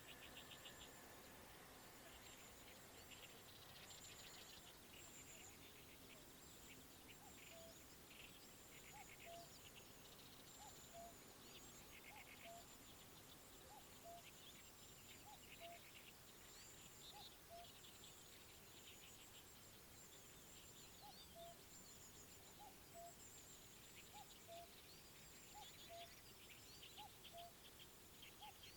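Faint riverside birdsong. A short two-note call, high then lower, repeats about every second and a half over bursts of rapid chattering song, with a faint high insect-like ticking.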